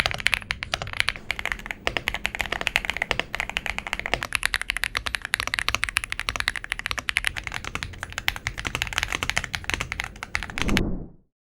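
Fast typing on a tenkeyless mechanical keyboard with a CNC aluminium case, a rapid, continuous run of key clacks that stops abruptly near the end.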